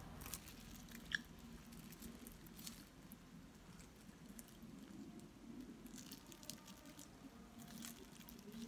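Faint chewing of a soft, sticky glutinous-rice cake, with a few light clicks and crinkles from its plastic wrapper being handled, one sharper click about a second in.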